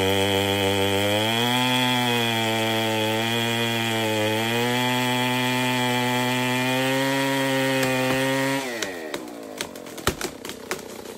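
Chainsaw running hard through a large tree, its engine note sagging and recovering under load, then holding steady. About three-quarters of the way through, the engine note falls away and the saw stops, followed by a run of sharp clicks and cracks.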